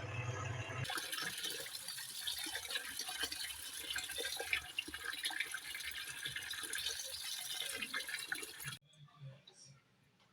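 A low hum for the first second, then running water splashing and churning, which cuts off suddenly near the end.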